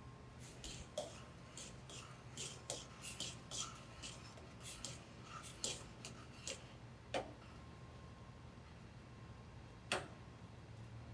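Light, irregular clicks and taps of kitchen utensils, a dozen or so in the first seven seconds and one sharper tap near the end, over a low steady hum.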